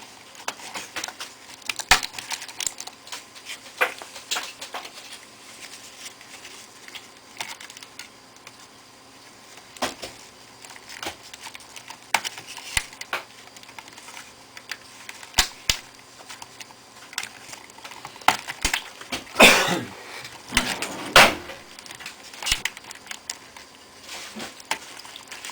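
Scattered small clicks and taps of laptop parts being handled and fitted during reassembly of a Toshiba A300, with two louder, longer noises a little before the end.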